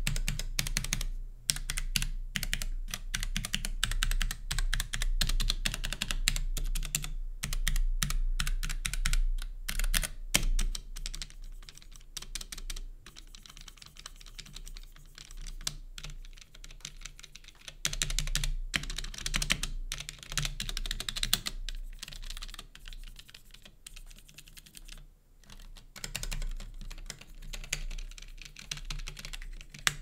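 Typing on a Womier K66 acrylic-cased mechanical keyboard with linear Gateron Red switches: a fast, uneven stream of key clacks with a few short lulls.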